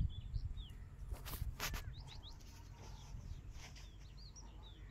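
Small birds chirping over and over in short, quick notes, with a couple of brief hissing noises about a second and a half in.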